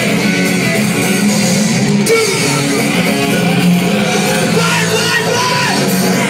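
Live hardcore punk band playing loudly through a PA, with electric guitar and drums, heard from within the crowd.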